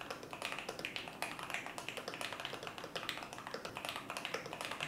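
Fast, continuous typing on a mechanical keyboard with Holy Panda tactile switches, many keystrokes a second.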